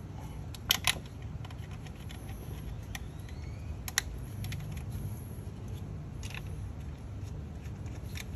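A few sharp small clicks and taps of metal bolts and plastic ignition coils being handled and fitted by hand on a Honda Civic four-cylinder engine, the loudest a quick double click about a second in, over a steady low background rumble.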